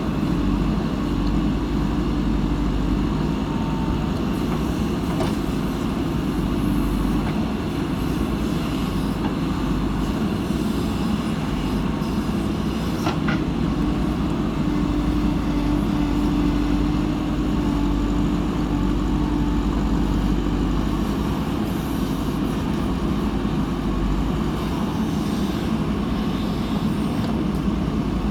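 Diesel engine of a backhoe loader running steadily: a continuous low drone, with a couple of faint knocks.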